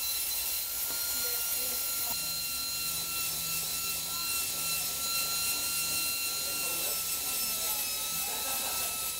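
Workshop machinery running with a steady high whine over a hiss, with a low hum joining about two seconds in and dropping out near the end.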